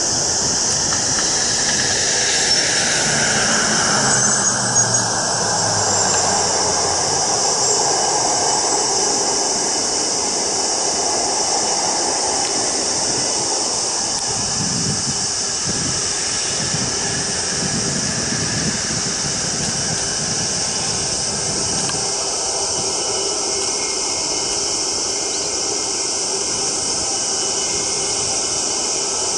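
The four GP7200 turbofan engines of an Airbus A380-861 at takeoff thrust: a steady high-pitched whine over a low rumble as the jet rolls down the runway and climbs away. The engine tone falls in pitch over the first few seconds as the aircraft moves off, and the rumble swells around the middle.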